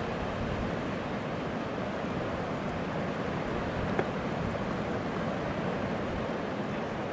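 Ocean surf breaking and washing up a beach, a steady wash of waves. A single sharp click about four seconds in.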